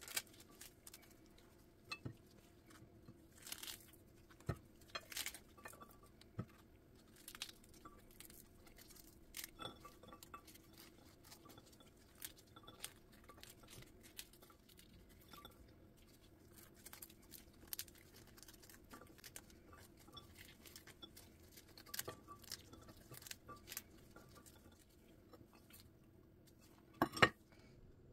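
Pomegranate seeds dropping and clicking into a ceramic bowl as the fruit is broken apart by hand, a faint irregular patter of small ticks and taps. Two louder knocks come close together near the end.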